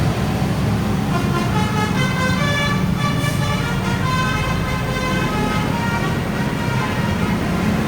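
Steady motor-vehicle rumble, with a run of higher pitched tones coming and going over it from about a second in until near the end.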